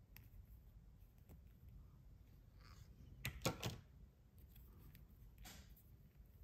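Small plastic toy figure handled and turned in the fingers: faint taps and rubbing, with a quick cluster of sharper plastic clicks a little past halfway.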